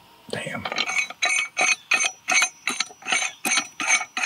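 Steel pipe wrench being worked by hand: a quick run of metallic clicks, about four a second, each with a brief ring, as its jaw is adjusted.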